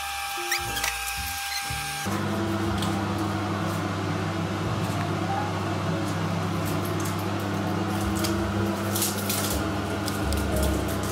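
Background music gives way about two seconds in to a steady electric hum of a kitchen fan running. A few light clicks and crinkles of aluminium foil and a roasting rack come near the end.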